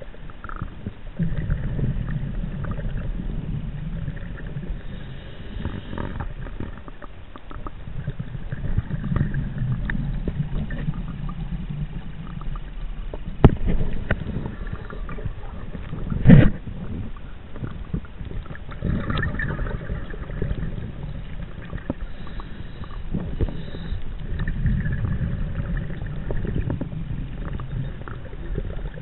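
A scuba diver's breathing, heard underwater through a chest-mounted camera's housing: low, rumbling bubble bursts from each exhale, coming every five or so seconds. Two sharp knocks a few seconds apart near the middle are the loudest sounds.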